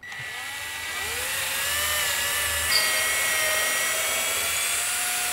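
Cordless drill running with a twist bit boring a peg hole through the wooden kayak frame: the motor whine spins up in pitch over the first second, then runs steadily under load.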